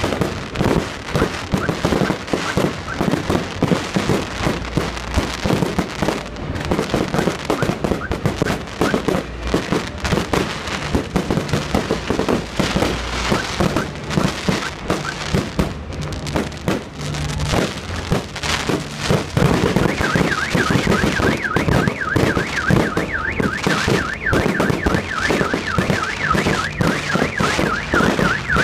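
Fireworks bursting and crackling in quick succession, shell after shell. Roughly two-thirds of the way in, a car alarm starts wailing with a rapidly warbling tone over the bangs.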